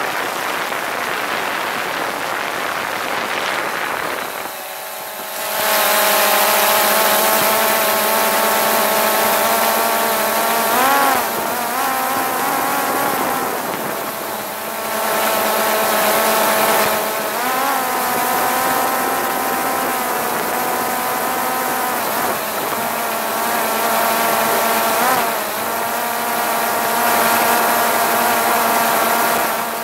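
Quadcopter drone's electric motors and propellers running in flight, a steady rushing hiss with a whine over it. About five seconds in the sound grows louder, and the whine's pitch briefly swings up and down a few times as the motors change speed.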